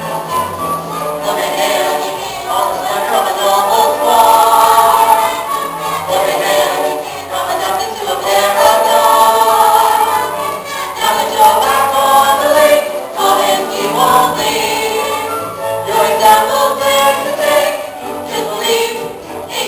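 A stage cast singing together in chorus over instrumental accompaniment, a musical-theatre finale number.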